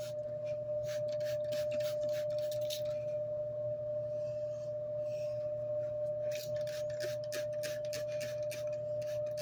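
Plastic trigger spray bottle misting water onto curly hair in quick repeated squirts, about four a second, in two runs with a pause of a few seconds between them. A steady hum with a clear tone runs underneath.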